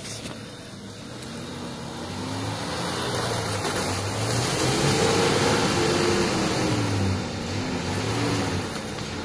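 Nissan Patrol 4WD engine revving up and down as the truck ploughs through a deep mud hole, with muddy water splashing around it. The engine note rises and falls several times and is loudest about halfway through.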